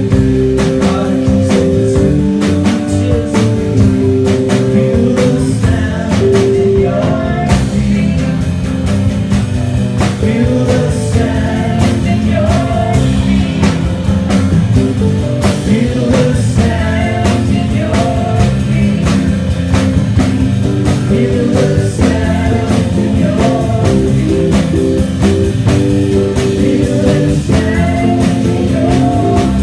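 Live rock band playing a song, with electric guitar, bass, keyboard and drum kit. Held keyboard and guitar notes sit over a steady drum beat.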